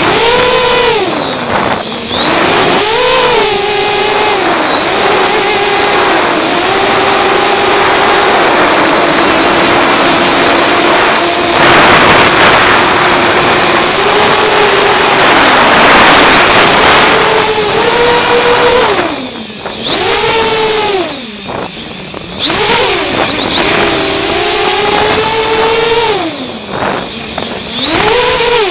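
FPV racing quadcopter's brushless motors and propellers whining, heard from the camera on board, the pitch rising and falling with the throttle. Several brief throttle cuts in the second half let the whine drop away before it surges back.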